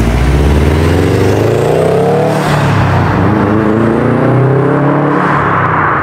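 Subaru WRX STi's turbocharged boxer four through an SPT cat-back exhaust, accelerating. The engine pitch climbs for about two seconds, breaks at a gear change, then climbs again.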